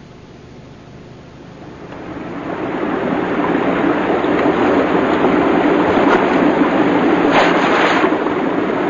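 A steady rushing noise, like surf or wind, fades in over the first two or three seconds and then holds, growing a little brighter near the end.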